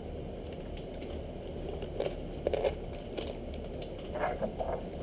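Plastic tackle packaging being handled: soft crinkling and rustling with scattered small clicks, over a low steady room hum.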